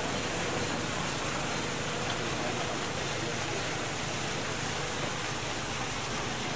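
Steady rushing splash of a water jet spraying into a swimming pool.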